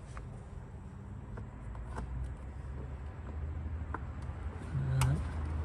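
Scattered light clicks and knocks of engine-bay parts being handled, over a steady low rumble, with a short low hum near the end.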